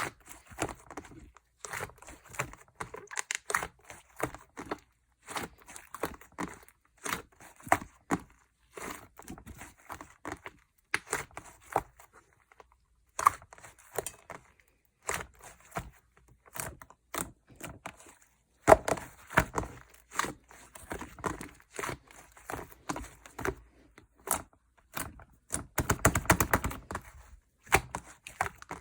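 Slime being squished and poked by hand, giving repeated bursts of sticky crackling pops and clicks roughly once a second, with a longer, louder run of crackles near the end.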